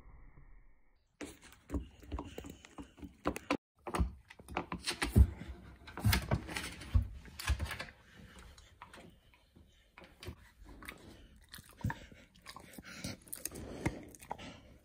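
A dog chewing and crunching cookie crumbs it is eating off the floor, close to the microphone: irregular crisp crunches starting about a second in, thickest and loudest in the middle.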